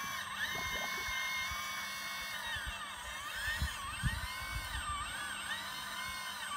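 Electric hydraulic pump of a radio-controlled model excavator whining, its pitch rising and falling as the long-reach boom and bucket move under varying load. A couple of low knocks come about halfway through.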